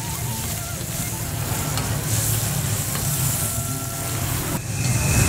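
Chopped garlic and goat meat sizzling in hot oil in a steel wok as a metal spatula stirs and scrapes, over a steady low rumble. Near the end the rumble grows louder and a steady high tone comes in.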